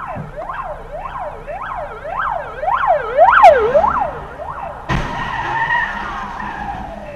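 Ambulance siren yelping, its pitch sweeping up and down about twice a second and loudest as it passes close by. About five seconds in it changes abruptly to a single tone that slowly falls in pitch.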